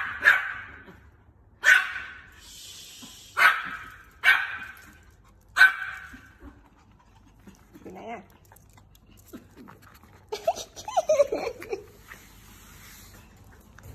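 A small dog barking sharply five times over the first six seconds, then softer whining and yipping sounds later on.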